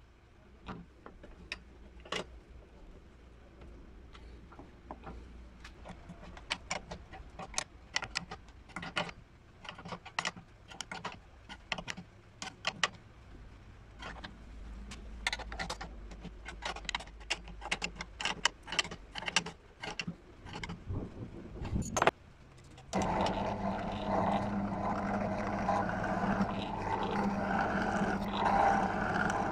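Irregular clinks and knocks of tools and parts being handled. About 23 seconds in, an electric power tool motor switches on and runs steadily with a loud hum.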